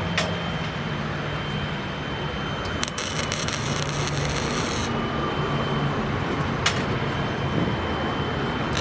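Steady workshop noise with a low hum, broken by a two-second burst of welding crackle about three seconds in and a few sharp clicks of metal.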